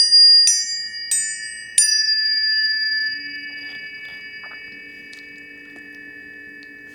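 Tuning forks struck three times in quick succession in the first two seconds, each strike leaving clear high ringing tones that hold steady and slowly fade. About three seconds in, lower steady tones join them.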